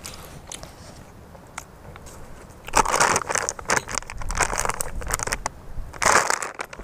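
Plastic beef jerky bag crinkling and crackling as it is handled and pulled open, in two spells of rustling, the longer one a little under halfway through and a short one near the end.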